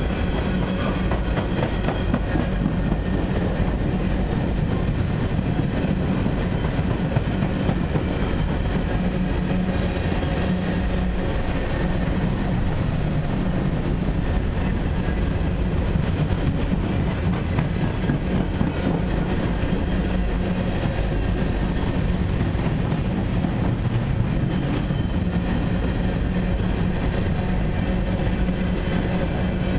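Freight train cars (tank cars and coal gondolas) rolling steadily past close by: a continuous rumble of steel wheels on rail with rapid clicking as the wheels cross the rail joints.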